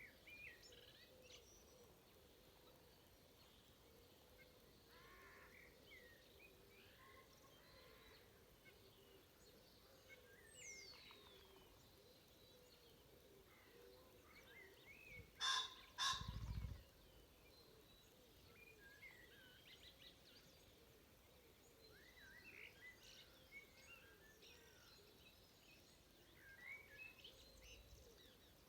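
Faint dawn chorus of scattered songbird calls, broken about halfway through by a male common pheasant's loud two-note crow, followed by a brief low whirr of its wings.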